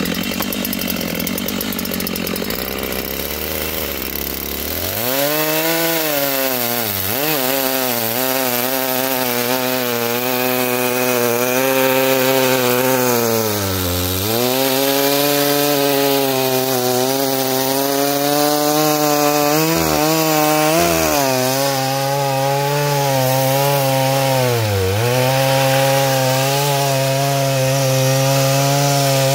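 Large gas chainsaw bucking a thick log. The engine runs lower at first, revs up to full throttle about five seconds in, and sags in pitch several times as the chain loads up in the cut, recovering each time.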